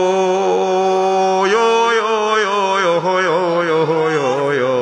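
A man chanting a long, drawn-out melody into a microphone. He holds one note for about a second and a half, then slides into a wavering, ornamented line. It is a sung imitation of the melodic appeal used when collecting donations for a mosque.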